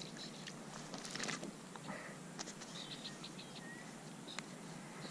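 Faint, short bird chirps, a few brief high notes and one short slurred note, over scattered small ticks.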